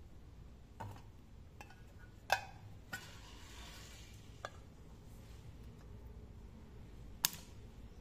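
Homemade spot welder built from a microwave-oven transformer, its electrode tips pressed onto nickel strip on a tin can: a handful of short sharp snaps, the loudest about two seconds in and near the end, over a faint low hum.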